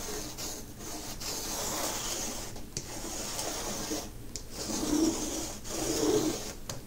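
Pocket-size Schticky reusable sticky lint roller rolled in repeated strokes over the faceted resin drills of a diamond painting, a gritty rubbing rasp with brief pauses between strokes. The tacky roller is lifting cat fur off the surface.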